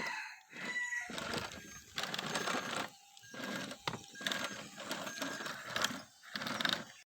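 Small electric motor and plastic gears of a remote-control toy vehicle whirring in several short bursts, starting and stopping as the controls are pressed.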